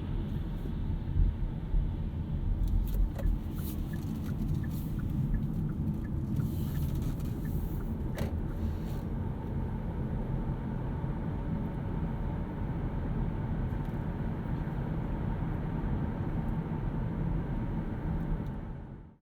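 Steady low road and tyre rumble inside the cabin of a Hyundai Kona Electric on the move, with no engine sound. A run of light, evenly spaced ticks and a few sharp clicks come a few seconds in, and the sound fades out near the end.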